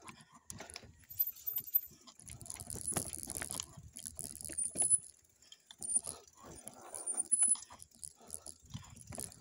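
Light metallic rattling and clicking from a mountain bike being ridden or pushed over rough ground, in irregular bursts.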